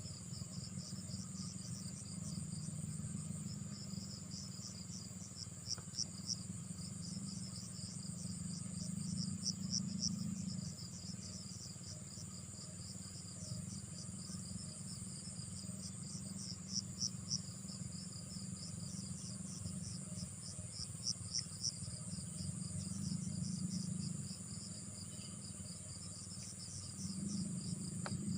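Insects, crickets by the sound, chirping in repeated short pulses, over a higher continuous trill that stops and starts. A low steady hum runs underneath.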